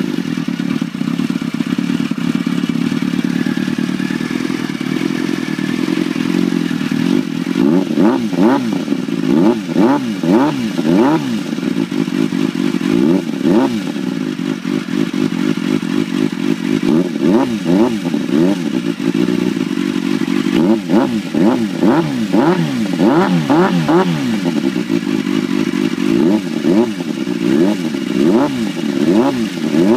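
Motorcycle engine running through a Delkevic 8-inch carbon-fibre slip-on silencer, fitted without its end cap. It idles steadily for several seconds just after starting, then from about seven seconds in the throttle is blipped again and again, the pitch rising and falling with each rev.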